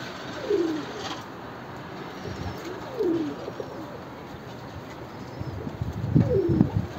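Domestic pigeons cooing close by: three falling coos about three seconds apart, the last one the loudest.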